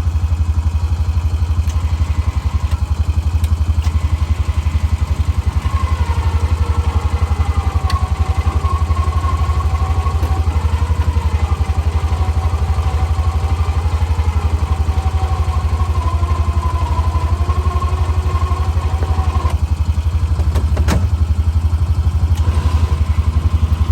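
Honda Pioneer side-by-side's engine running steadily under load while pulling a broken-down side-by-side backwards on a strap. A wavering whine rides over the engine from about six seconds in until about twenty, followed by a single sharp click.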